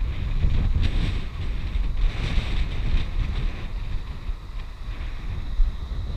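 Wind blowing in gusts across the camera microphone, with waves washing onto a stony beach faintly behind it.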